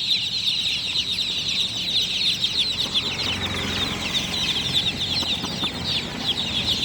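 A large crowd of newly hatched chicks peeping loudly and continuously, many short, high, downward-sliding peeps overlapping into a constant chorus.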